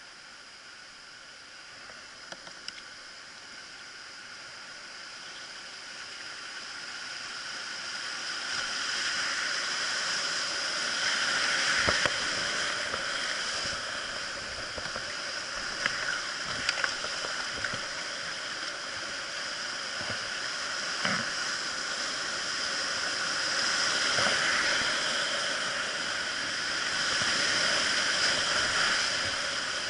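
River rapids rushing around a kayak's hull as it runs whitewater. The rush swells over the first ten seconds or so as the boat enters the rapids, then holds steady. A few sharp splashes are heard now and then.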